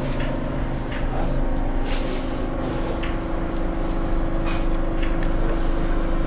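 New York subway D train running along elevated track: a steady hum of several tones over a rumble, with scattered sharp clicks from the wheels on the rails.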